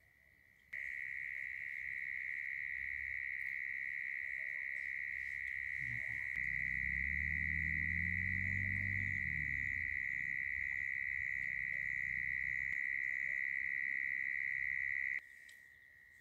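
Night insects, crickets, trilling on one continuous high, steady note. The trill starts abruptly about a second in and cuts off near the end. A low rumble with a shifting pitch swells and fades in the middle.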